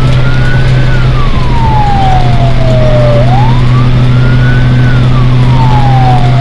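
Fire truck siren sounding a slow wail, heard from inside the cab: the pitch rises and falls back slowly twice, each rise and fall taking about four seconds. A steady low engine drone runs underneath.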